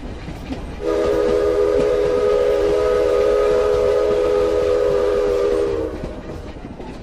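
A train whistle sounds one long, steady chord of several notes for about five seconds, starting about a second in, over a low rumble.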